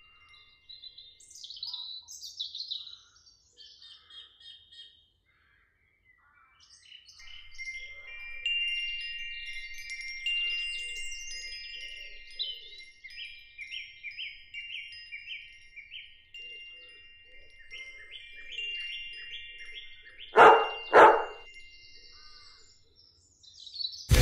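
Chiming tones and rapid bird-like chirps, with held high notes under a run of short repeated notes. Two loud brief sounds come near the end.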